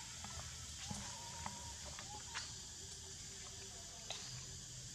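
Faint forest ambience: a steady high hiss over a low hum, with a few scattered clicks and short chirps.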